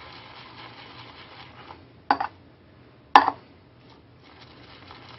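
Damp boar-hair shaving brush swirling and working lather on a puck of Master Well shaving soap, a steady wet swishing. The swishing pauses about two seconds in for two short sharp knocks a second apart, then resumes.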